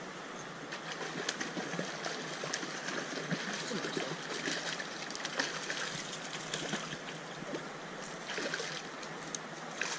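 Trout stream water running steadily, with irregular small splashes and clicks in the water from about a second in.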